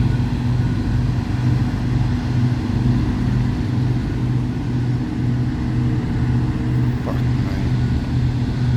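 Heavy mining machine's engine running steadily: a low hum that pulses a few times a second.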